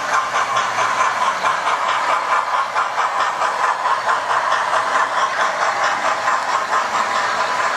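Model railway train running along the track: a green model steam locomotive hauling Pullman coaches past, a steady motor whir with a fast, even clicking of wheels over the rails.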